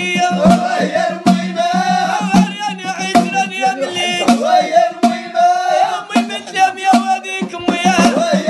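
A man singing a Moroccan song with a wavering, ornamented melody, over a backing track with regular hand-percussion strokes.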